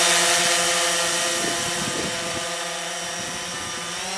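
Quadcopter's motors and propellers humming steadily in hover, a several-tone drone over a hiss of propeller wash. It grows gradually fainter as the quadcopter moves away from the microphone.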